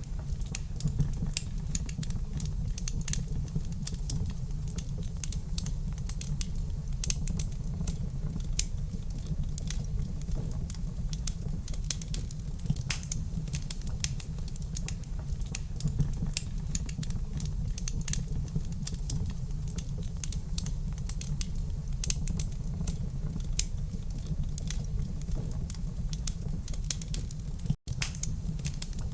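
Wood fire crackling in a fireplace: frequent irregular sharp pops and snaps over a steady low rumble of flames. The sound drops out for an instant near the end.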